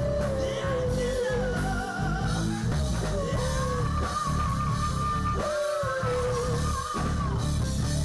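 A group singing a pop-rock song into microphones over band accompaniment, with long held sung notes.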